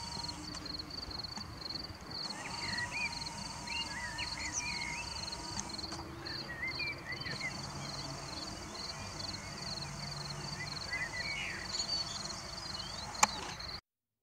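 Evening meadow ambience: crickets chirping at an even pace, about three chirps a second, with birds calling in short phrases now and then. A sharp click near the end, then the sound cuts off.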